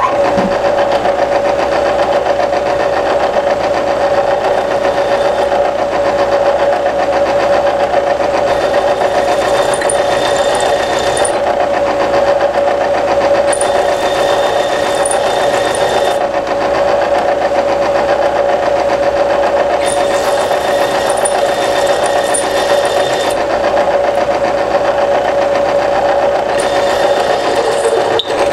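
A motor running steadily with a constant whine, switched on abruptly.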